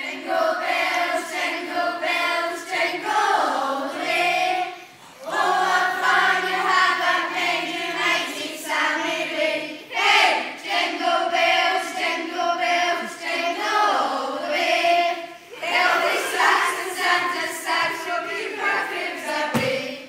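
A group of voices singing together like a choir, in sung lines of about five seconds with short breaks between them.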